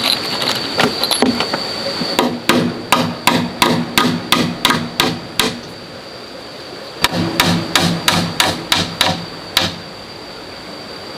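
Rapid hammer-like strikes, about three a second, in two runs with a short pause between them, over a steady high-pitched whine.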